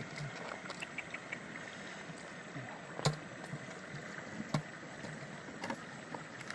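Steady rushing background noise with scattered small clicks and handling noises, and a sharp knock about three seconds in, as a fish and a PVC pipe fish trap are handled on wet ground.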